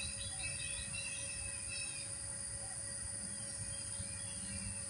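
Outdoor ambience: a steady high-pitched insect drone, with short bird chirps during the first couple of seconds, over a low background rumble.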